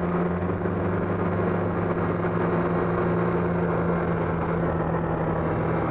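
Yamaha R6 inline-four engine running at a steady cruise, its pitch holding even, heard through a helmet-mounted mic with a steady rush of wind noise.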